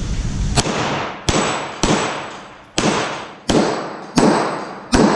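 Semi-automatic pistol fired seven times in quick succession at steel targets, shots about two-thirds of a second apart, each followed by reverberation inside an indoor range.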